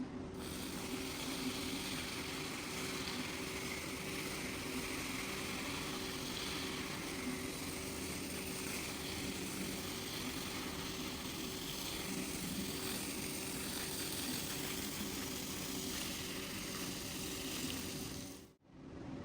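Carpet-cleaning equipment at work on a rug: a steady hiss of water with a motor hum underneath. It cuts off abruptly near the end.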